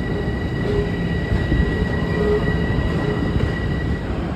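Long Island Rail Road train rumbling, with a steady high-pitched whine that fades out near the end and a lower tone that comes and goes.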